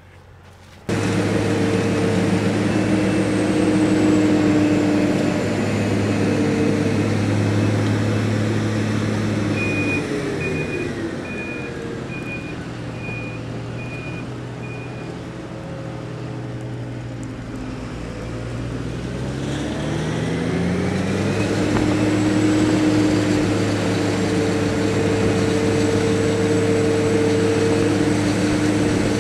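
Heavy diesel machinery working: a tractor running alongside a John Deere 8700 self-propelled forage harvester as it chops corn, engines droning steadily. The engine note falls about ten seconds in and climbs back up around twenty seconds. A row of about six short, high beeps sounds during the lower stretch.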